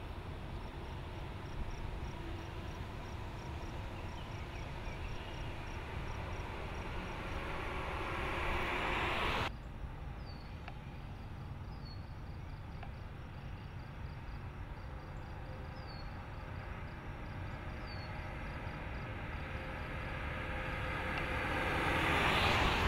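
Ram ProMaster City compact van, with its 2.4-litre four-cylinder engine, driving by on a road, with engine and tyre noise swelling as it approaches. The sound cuts off abruptly about nine seconds in, then builds again with a second pass near the end. Insects chirp steadily behind it, with a few bird chirps.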